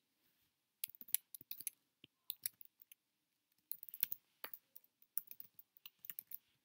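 Computer keyboard typing: an irregular run of short keystroke clicks starting about a second in.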